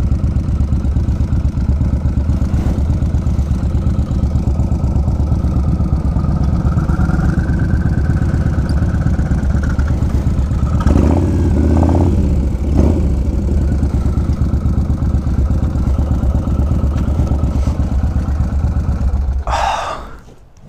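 Yamaha Road Star Warrior 1700's big air-cooled V-twin running at low speed with a steady, pulsing exhaust note. It gets louder for a couple of seconds around the middle, then cuts off shortly before the end as the engine is switched off.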